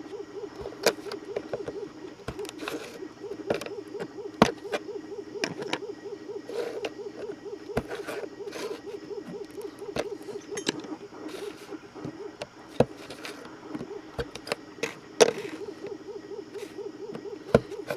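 Pocketknife cutting and snapping small 3D-printed ABS plastic parts off their printed base: irregular sharp clicks and snaps, the loudest about four seconds in and again near fifteen seconds. A steady wavering hum runs behind them.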